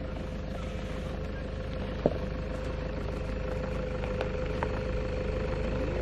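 A vehicle engine idling steadily: a low hum with a held mid-pitched whine, slowly growing louder. One short sharp click about two seconds in.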